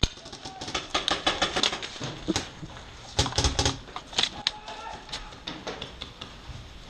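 Paintball gunfire: irregular volleys of rapid sharp pops. They come in clusters about a second in, around three and a half seconds, and again a little later.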